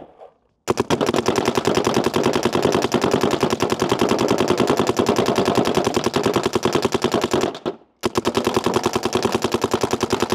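DLX Luxe IDOL electropneumatic paintball marker firing long rapid strings of shots. One string of about seven seconds is followed by a brief pause, then another string begins.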